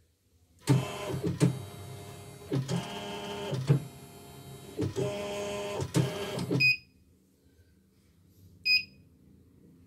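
Portable CNY embroidery machine's carriage motors jogging the embroidery frame toward its far corner: a pitched mechanical whirring in about six short runs, each starting with a click, lasting about six seconds. One short electronic beep from the machine about a second before the end.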